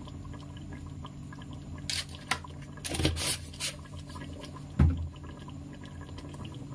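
Thick chicken korma gravy simmering in an open pressure cooker, bubbling with a few short wet pops, over a steady low hum.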